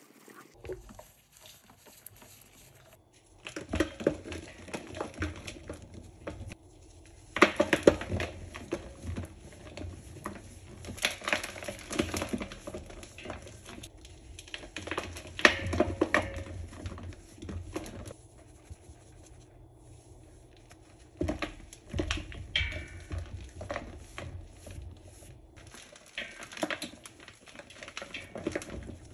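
A slab of compacted Comet cleanser powder crushed and crumbled by hand: irregular bursts of dry crunching and crumbling, each lasting a second or two and coming every few seconds.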